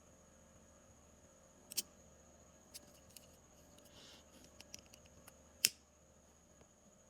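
Small sharp clicks and taps of tools and phone parts being handled during a charging-port repair: about eight scattered ticks, the loudest a little past five and a half seconds in, over a faint steady high whine.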